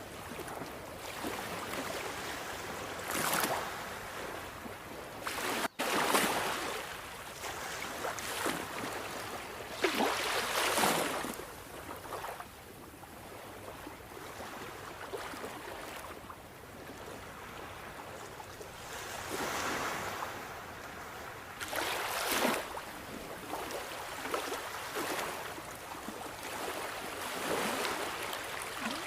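Sea waves breaking and washing in: a steady hiss of surf with louder surges every few seconds, and a momentary cut in the sound about six seconds in.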